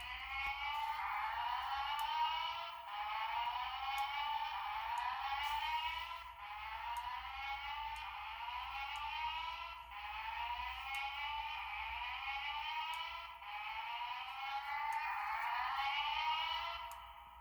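Fire alarm speaker sounding its alarm signal: short rising sweeps repeated over and over, in cycles of about three and a half seconds with a brief break between each cycle. It stops shortly before the end.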